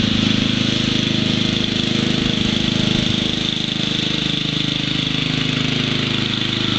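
Lawn tractor's small engine running steadily.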